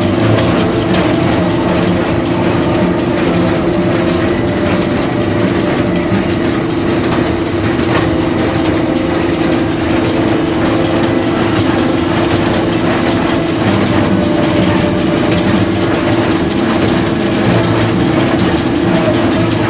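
Tractor-drawn hay equipment running steadily: a diesel engine with a constant whine and a rattling mechanical clatter.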